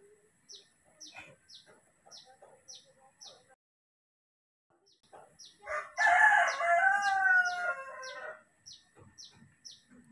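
A rooster crows once, the loudest sound here, for about two and a half seconds starting about six seconds in. Behind it a small bird repeats short, high, falling chirps about twice a second.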